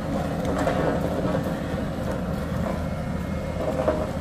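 A vehicle engine running steadily, a low rumble, with a few light knocks over it.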